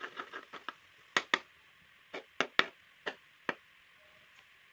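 Metal slotted spoon knocking and tapping against the pan while the eggs are broken up and scrambled among the vegetables: a quick run of light taps, then several sharper, spaced knocks, over a faint steady hiss.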